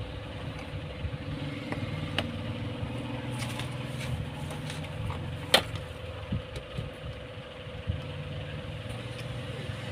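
A motor running steadily in the background, a low rumble with a constant hum, with scattered light clicks and one sharp click a little past halfway.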